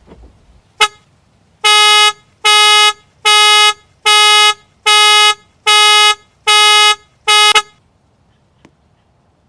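Car alarm sounding the car's horn: one short chirp, then eight steady honks of one pitch, a little over one a second, that stop abruptly.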